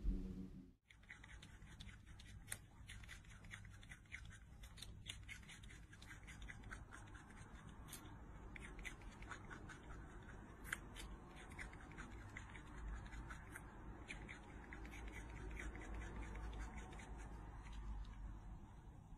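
Small pet rodent nibbling a piece of carrot: quick, crisp crunching clicks, fast and irregular, starting about a second in.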